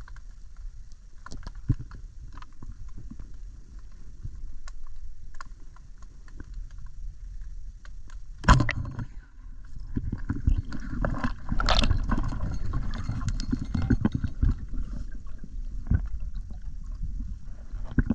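Underwater sound heard through a GoPro housing: a muffled low rumble of moving water with scattered clicks, then a sharp crack about eight and a half seconds in. From about ten seconds in, louder churning and knocking as a speared tilapia struggles on the line and is handled.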